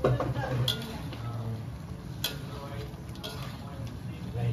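Metal spatula stirring and scraping chicken pieces in soy sauce in a steel wok, with the food sizzling as it fries. The spatula strikes the wok sharply twice.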